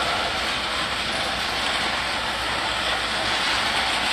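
Rock-train hopper cars rolling past at trackside, a steady noise of steel wheels running on the rails.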